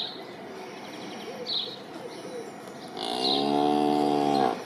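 A cow mooing once, a long level moo starting about three seconds in and lasting about a second and a half. Birds chirp briefly about every second and a half.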